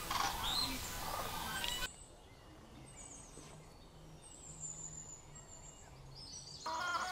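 Outdoor rural ambience with birds calling: a busy mix of chirping calls at first, then an abrupt drop to a quieter background with a few faint high chirps, and louder chirping with quick trills returning near the end.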